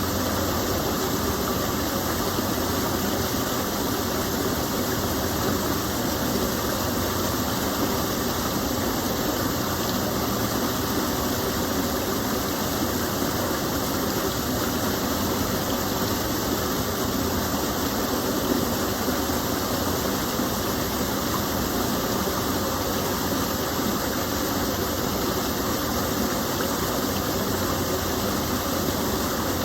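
Water pouring down a small waterfall in a gentle stream, a steady even rushing.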